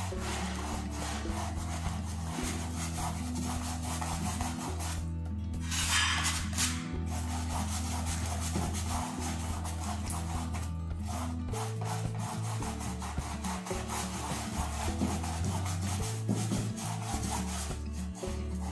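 Stiff hog-bristle flat brush scrubbing acrylic paint onto a canvas in repeated back-and-forth strokes, a dry rubbing scratch, with soft background music underneath.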